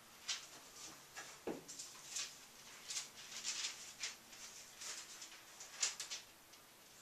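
Thin Bible pages being leafed through and turned by hand: a string of short, irregular papery swishes and crinkles, with one brief low sound about a second and a half in.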